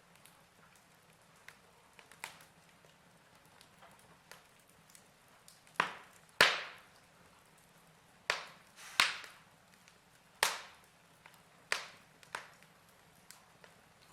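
Fire crackling: a string of sharp pops and snaps over a faint steady hiss, most of them bunched in the middle, the loudest about six and a half seconds in.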